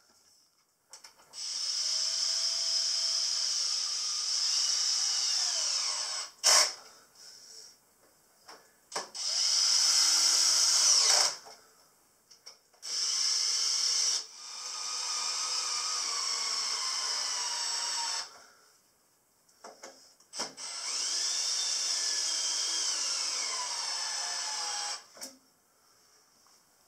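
Makita 18V cordless drill driving threaded inserts and bolts into pine timber, in about five runs of a few seconds each with pauses between. Within some runs the motor's whine drops in pitch as the fixing bites and the load rises. There is one sharp click about six seconds in.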